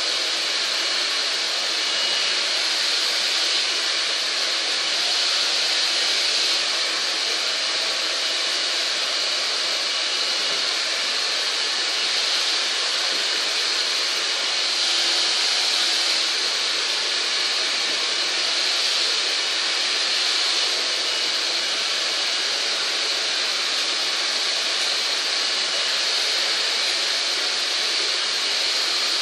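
Hair dryer running continuously, a steady whooshing rush of blown air.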